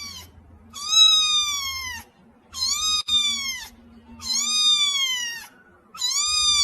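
A cat meowing over and over: long, high-pitched meows, each rising slightly and then falling, about one every second and a half to two seconds.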